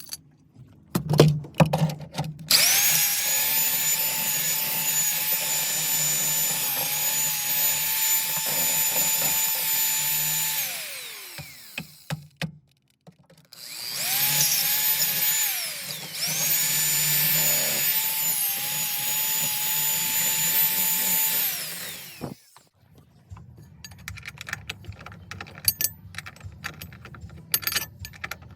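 Electric drill running in two long runs of about eight seconds each, a steady high whine that winds down each time the trigger is let go, drilling holes through the car's floor for a shifter base plate. Light clicks and rattles of handling follow near the end.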